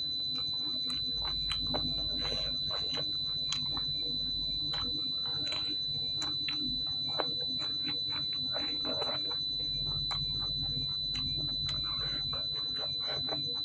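Close-miked eating sounds: wet chewing, lip smacks and finger-licking as food is eaten by hand, with many short irregular clicks. Under them is a constant high-pitched electronic tone.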